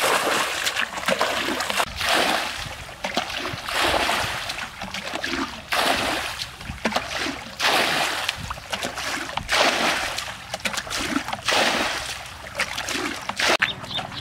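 Muddy pond water being bailed out with a bucket: repeated gushing splashes as each bucketful is scooped and poured out, about one pour every two seconds.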